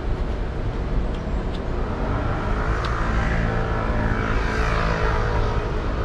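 Road traffic going by, with one vehicle's engine and tyres swelling and then fading as it passes in the middle. A few light clicks sound in the first three seconds.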